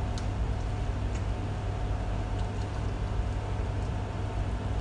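Steady low hum of a ventilation fan, with a faint steady whine over it and a few soft clicks.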